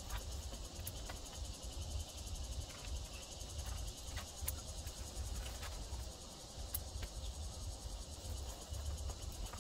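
Steady chirring of insects, with a low rumble underneath and a few faint clicks.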